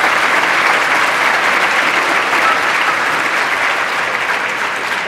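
Audience applauding, a dense steady clapping that eases slightly near the end.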